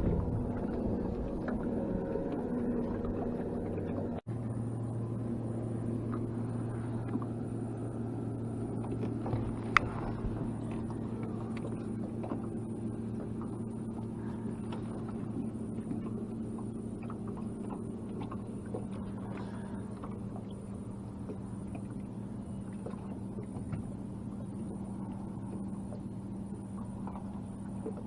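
A boat's electric trolling motor humming steadily, holding the boat over the timber. A single sharp click sounds about ten seconds in.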